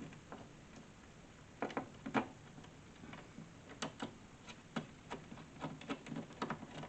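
Irregular clicks and knocks from metal hinge hardware and wooden cabinet parts being handled and fitted, with two louder knocks about two seconds in and a quicker run of small clicks in the second half.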